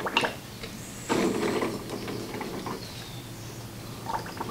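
Large plastic syringe's plunger pushed down its barrel, forcing oil through a spin-on oil filter on a test manifold. A few clicks at the start, then a rough rubbing creak for a second or two.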